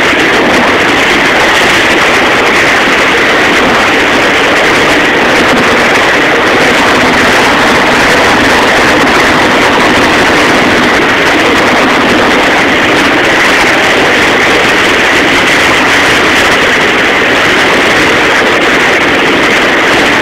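Loud, steady rushing of churned water in a boat's wake, mixed with the boat's motor running.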